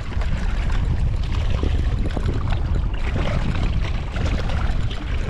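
Strong wind buffeting the microphone: a loud, steady low rumble with gusty noise over it.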